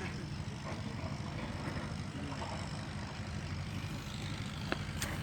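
Machinery running steadily with a low, even engine-like hum, with a couple of faint clicks near the end.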